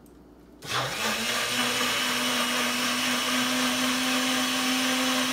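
Countertop blender switched on about three-quarters of a second in, its motor quickly spinning up to a steady high speed and running, puréeing onion and garlic in a beer and pineapple-juice liquid.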